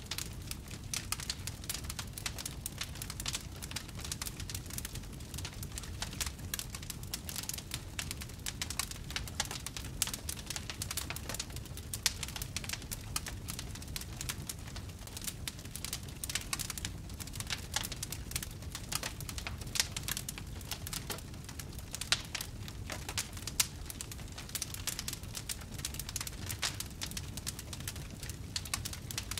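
Wood fire in a fireplace crackling steadily, a dense run of small snaps over a low rumble, with a few louder pops standing out.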